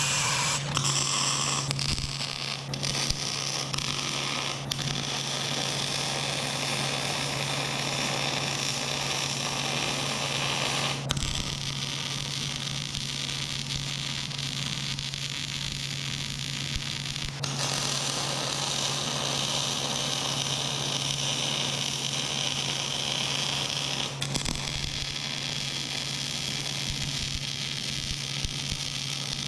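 Welding on steel truck-bed hinges: a steady hissing, crackling arc noise over a constant low welder hum, the arc noise changing in character a few times as one weld run stops and the next begins.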